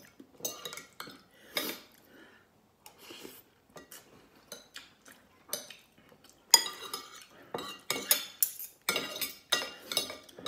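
Metal spoon and fork scraping and clinking against a ceramic plate while scooping up rice, in short separate strokes that come thick and fast in the second half.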